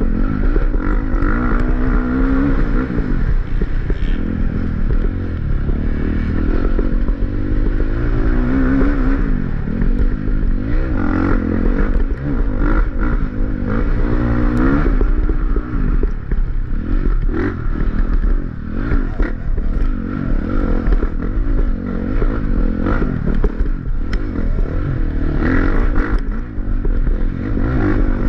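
Off-road dirt bike engine revving up and down repeatedly as it is ridden hard along a twisty trail, with the bike's chassis clattering and scraping over rough ground.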